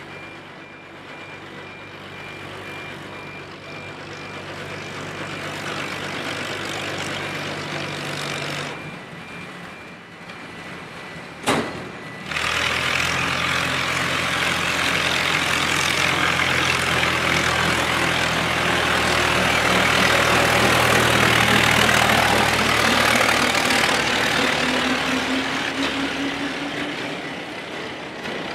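Small narrow-gauge locomotive with a low steady engine note, approaching and passing close with its brake van and wagon, wheels rumbling loudly on street-running rails; the rumble swells from about twelve seconds in and fades near the end. Rapid electronic beeping sounds over the first part, and a single sharp knock comes just before the rumble rises.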